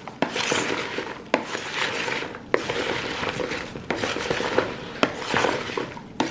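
Salad of leafy greens being tossed with a wooden utensil in a plastic mixing bowl. Leafy rustling swishes come about once a second, each starting with a sharp click of the utensil against the bowl.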